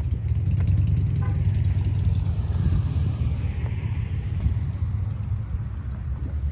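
A car driving past at a car show, its sound swelling and fading around the middle, over a steady low rumble.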